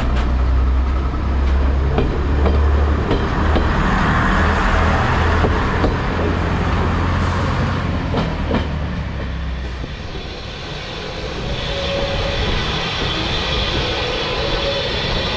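A heritage diesel multiple unit pulling away along the platform, its diesel engines running with a steady low drone and its wheels clicking over the rail joints. About ten seconds in the engine sound dies away and a steady hiss takes over.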